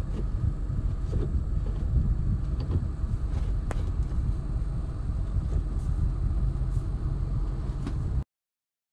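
Steady low rumble of a car, with a few faint clicks, cutting off suddenly near the end.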